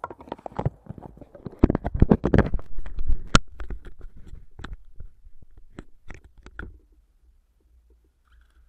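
Handling noise right at the microphone: a flurry of knocks, taps and rubbing, busiest in the first few seconds, which dies away about seven seconds in.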